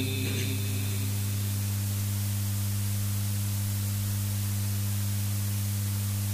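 Steady electrical hum with hiss from a microphone and public-address system left open, the last of a voice's echo fading in the first second.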